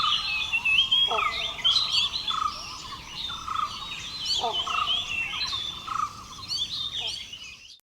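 Several forest birds calling together. One note repeats about once a second beneath a busy mix of higher chirps and twitters, and the calls fade out near the end.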